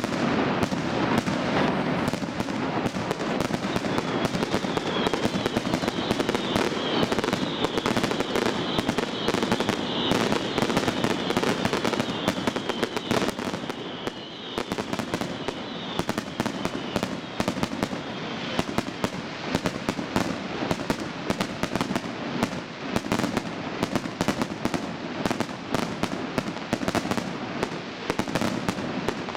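Fireworks display: a fast, unbroken run of bangs and crackling from many shells and rising comets. A high hiss runs under it from about four to eighteen seconds in.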